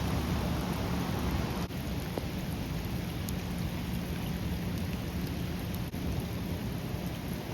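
Waterfall: a steady rush of falling water, broken by two brief cuts.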